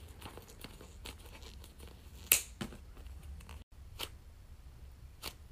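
Scissors cutting through a soft foam squishy toy, then the foam pulled apart: faint cutting and tearing with a few sharp clicks, the loudest about two seconds in.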